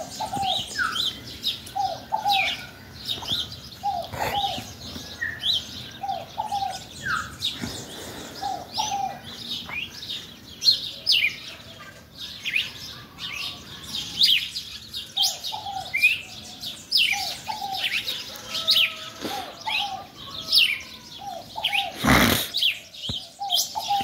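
Many small wild birds chirping and twittering at once, with a lower-pitched call repeated in short pairs through most of it. A brief loud rush of noise cuts across near the end.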